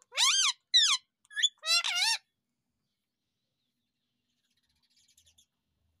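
Indian ringneck parrot (rose-ringed parakeet) calling: four loud, high calls with wavering pitch in quick succession in the first two seconds. Faint high chatter follows near the end.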